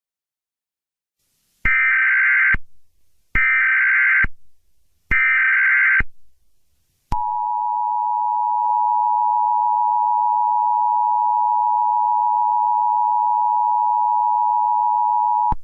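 Emergency Alert System tones: three short buzzing data bursts of the SAME header, each about a second long, then the EAS attention signal, a steady two-note tone (853 and 960 Hz) held for about eight seconds and cut off suddenly. Together they mark the start of an emergency alert broadcast.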